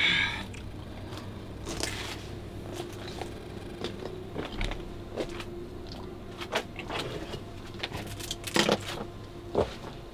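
Footsteps crunching and scraping over a gritty, debris-strewn floor, with scattered irregular knocks and clicks, the loudest near the end.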